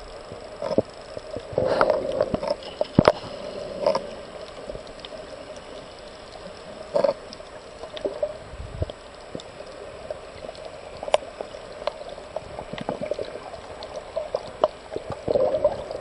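Underwater sound picked up by a camera held under the water: a steady muffled water noise with many sharp clicks and pops scattered through it.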